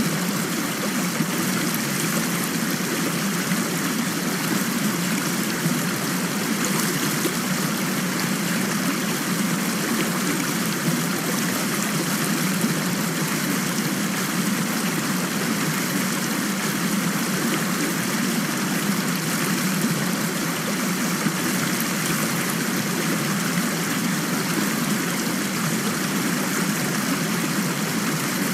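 Steady rain, an even unbroken hiss of falling water with no separate drops or breaks standing out.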